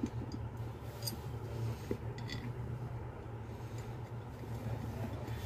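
A few faint, sharp metallic clicks and scrapes as nuts are put onto the bolts of a ceiling fan's body by hand, over a steady low hum.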